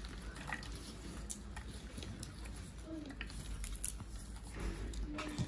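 Popcorn being grabbed by hand from plates and eaten: scattered rustles, light clicks and crunches.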